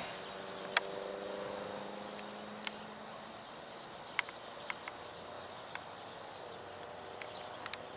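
Faint outdoor background: a steady low hiss with a weak hum, broken by scattered sharp clicks about ten times.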